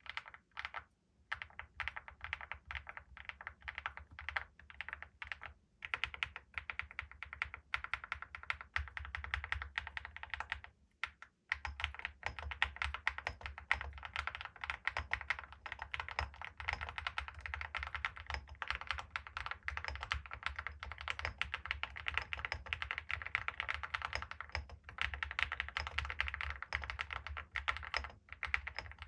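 Typing on an Akko SPR67 aluminium spring-mount mechanical keyboard with factory-lubed HMX Cheese switches and Cerakey ceramic keycaps. The keystrokes are sparser with short gaps at first, stop briefly about eleven seconds in, then run fast and continuous.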